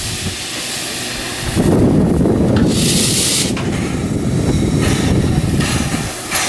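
Narrow-gauge steam locomotive hissing steam, with a low rumble through the middle and a loud burst of steam hiss about three seconds in.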